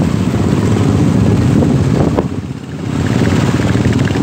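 Many Royal Enfield Bullet single-cylinder motorcycle engines running together as a column of bikes rides past, a dense low engine sound that dips briefly about two and a half seconds in.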